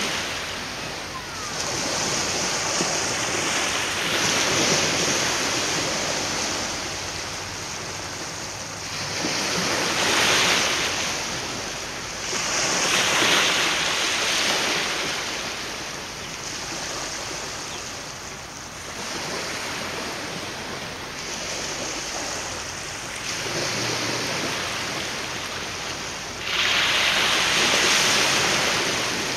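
Waves washing on the shore in swells every few seconds, with wind in the background.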